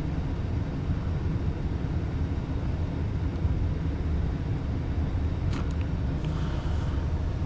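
A steady low motor hum that runs unchanged, with a couple of faint clicks about two-thirds of the way through.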